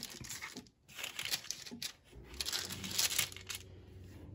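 Baking paper crinkling and rustling in irregular bursts as hands press and shape a ring of sweet bread dough on a baking tray. A low steady hum starts about halfway through.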